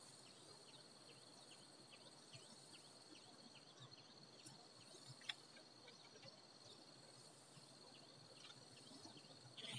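Faint night-time insect chorus, near silence: a steady high trill with short falling chirps repeating two or three times a second. There is one sharp click about five seconds in.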